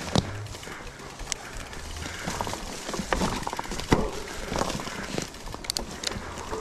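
YT Decoy electric mountain bike ridden down a mossy forest trail: tyres rolling over the ground, with the bike rattling and irregular sharp clicks and knocks as it goes over bumps.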